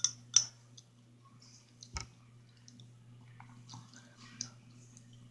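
Sharp clicks and taps of a cup of orange juice being handled: two close together at the start, a sharper one about two seconds in, then fainter scattered clicks. A steady low hum runs underneath.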